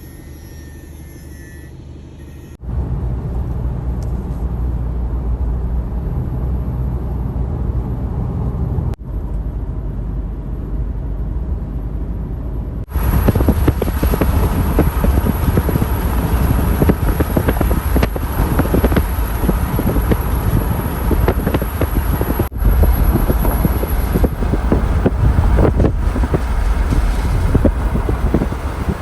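Wind buffeting the microphone over a low rumble. The noise gets suddenly louder about three seconds in and again about halfway through.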